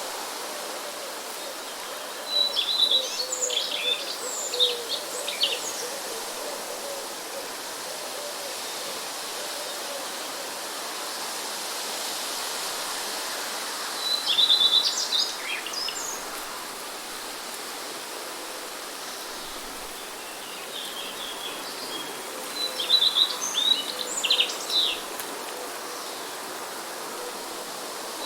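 Songbirds singing in three short bouts of rapid, high chirps and trills, over a steady background hiss.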